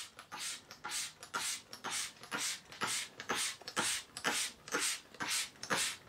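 Trigger spray bottle of soapy water pumped over and over, a short hissing spritz about twice a second, wetting a car body panel for a wet-applied vinyl stripe.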